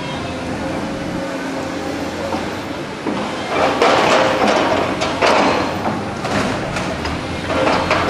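A steady engine hum at a demolition site. From about three seconds in, several sudden louder surges of noise come over it.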